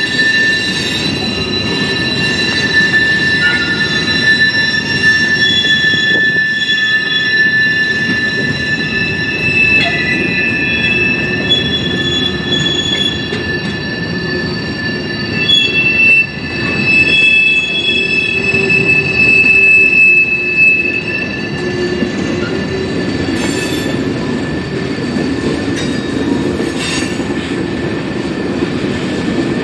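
Freight train cars rolling past close by, a continuous rumble with steady high-pitched squealing from the wheels over it, and a couple of sharp clanks near the end.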